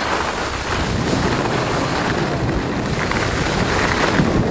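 Wind buffeting the microphone of a camera carried at speed down a ski slope: a loud, steady rushing rumble.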